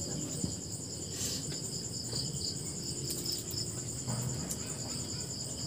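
Crickets chirping: a steady, high, rapidly pulsing trill, with a few faint clicks over it.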